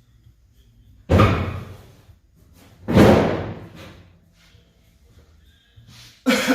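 Three heavy metal bangs about two seconds apart, each ringing out for under a second: a truck's steel hood being fitted back on and set down.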